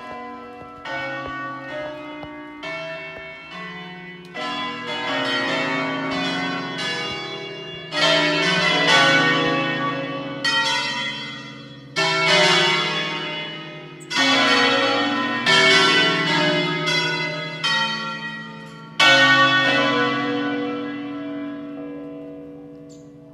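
Church tower peal of eight bells playing a solemn 'concerto' from a preset automatic program. The bells strike one after another, their ringing overlapping, with heavier strokes every few seconds. The last strokes ring out and fade away near the end.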